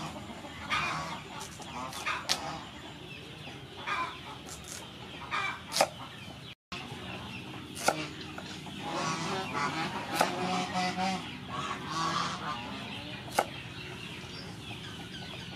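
Knife slicing carrots on a thick wooden chopping board, with a few sharp knocks as the blade meets the board. Chickens cluck throughout, loudest just after the middle.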